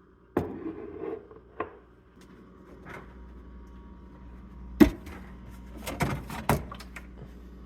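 Knocks and clatter of things being handled in a small room: a clunk at the start, a single sharp knock about five seconds in, then a quick run of knocks, all over a steady low hum.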